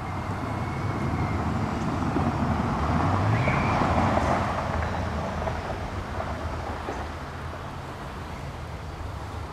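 Wind on the microphone over steady outdoor background noise, swelling for a couple of seconds around the middle.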